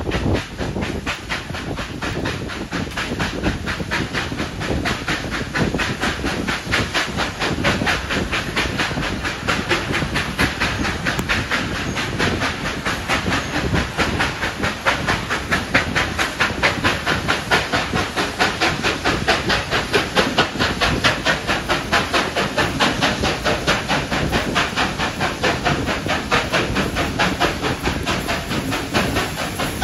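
Steam locomotive 3801, a 4-6-2 Pacific, exhausting in a fast, even beat while working hard up a steep grade. It is heard from the train it is hauling, with steam hiss and wheel-on-rail noise underneath. The beats grow more pronounced about halfway in.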